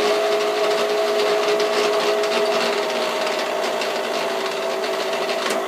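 Schaublin SV52 milling machine feed gearbox running under its 3-phase motor, a steady hum with a dense, noisy gear clatter over it. The clatter stops abruptly near the end, leaving the motor's steady hum.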